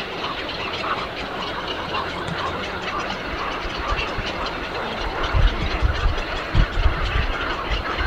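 Dense chatter of many birds calling at once, a busy, continuous mass of short calls. Low rumbling thumps come in during the second half and are the loudest sounds.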